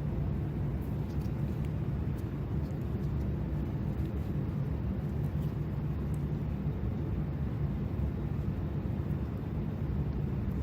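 A steady low hum or rumble with no change in pitch, with a few faint small clicks over it.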